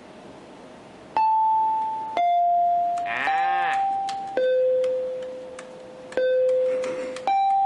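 A slow string of electronic chime tones, one note about every second, each struck sharply and fading, stepping between a few different pitches. A warbling, bleat-like sound cuts in about three seconds in.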